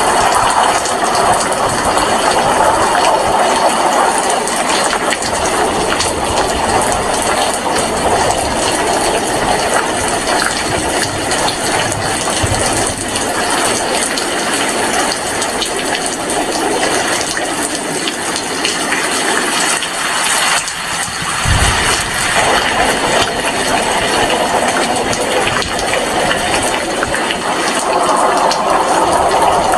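Heavy rain falling steadily in a dense, even hiss. There is a brief low thump about two-thirds of the way through.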